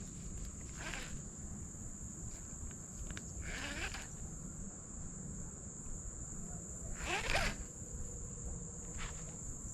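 Steady high-pitched insect drone from the pond bank, with a few brief swishing sounds; the loudest comes about seven seconds in.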